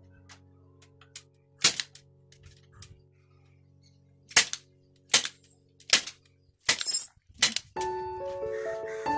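Hand staple gun firing staples through plastic mesh into a wooden frame: a series of sharp single snaps, coming closer together after the first few seconds. Background music comes in near the end.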